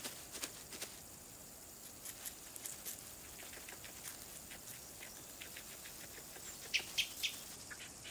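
Faint, scattered ticks and rustles of a European rabbit moving and nibbling in dry grass, with three sharper ticks in quick succession about seven seconds in.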